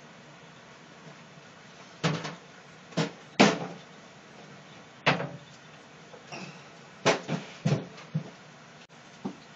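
Kitchenware knocking against a stainless steel sink as a mesh strainer and plastic bowl are set down and a wooden cutting board is laid across the sink. It is a series of separate sharp knocks and clatters, the loudest about three and a half seconds in.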